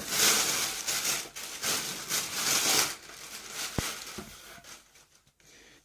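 Parcel packaging, paper and plastic, rustling and crinkling as it is handled, in several bursts over the first three seconds, with one sharp click near four seconds.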